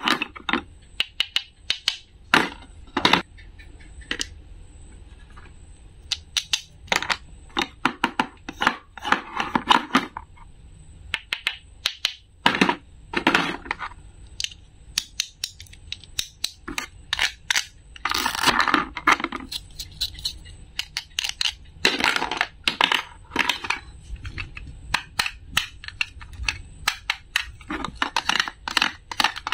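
Wooden toy knife tapping and sliding against plastic play-food pieces on a plastic board, with short rasping tears as hook-and-loop-joined halves are pulled apart, and clicks and taps as pieces are handled and set down.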